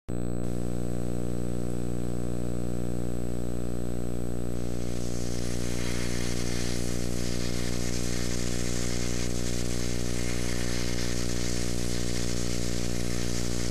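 Steady, unchanging low electrical buzz with many overtones, with a hiss that grows louder about four to five seconds in.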